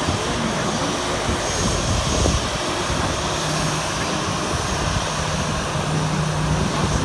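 Airliner engine noise: a steady, continuous rush with a low hum underneath.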